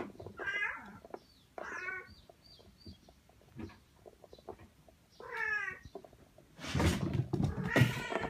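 A cat meowing: three separate meows of about half a second each, spread apart with quiet in between, then a louder, noisier stretch of calling near the end.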